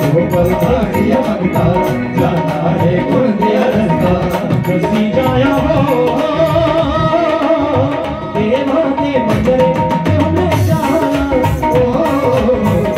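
Live Hindu devotional jagran music played through PA speakers: a steady dhol beat struck with a stick under a keyboard melody, with a male singer on the microphone.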